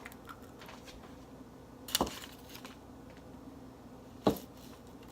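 Two eggs cracked one after the other against a measuring cup: two sharp knocks a little over two seconds apart, with small clicks of shell and handling between.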